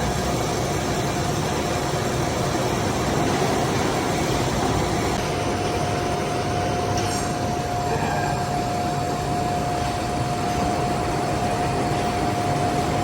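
Metal-turning lathe running steadily, a constant mechanical rumble with a steady whine held throughout.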